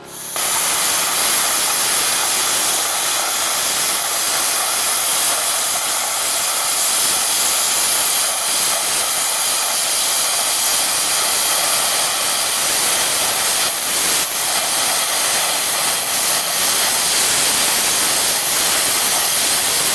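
Tenya Cut 50 air plasma cutter cutting metal: the arc and compressed air blowing through the torch make a loud, steady hiss that starts abruptly.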